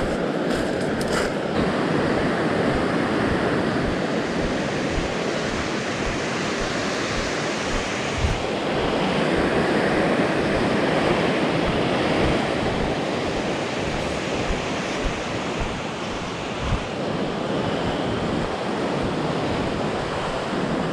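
Fast mountain river rushing over rapids, a steady noise, with wind rumbling on the microphone.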